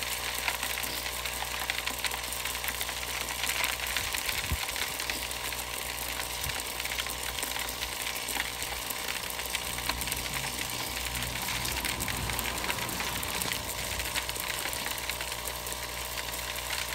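Vibratory ore feed hopper running: a steady mechanical hum under a continuous crackling rattle of crushed rock shaking down the feed chute and spilling into a plastic bucket.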